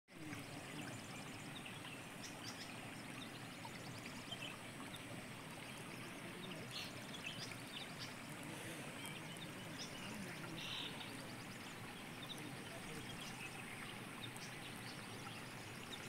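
Steady rushing background noise like a running stream, with faint short high chirps scattered through it.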